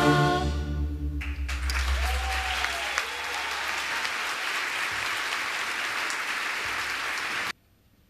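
Audience applauding after a symphony orchestra's final chord fades: clapping swells in about a second and a half in and cuts off suddenly near the end.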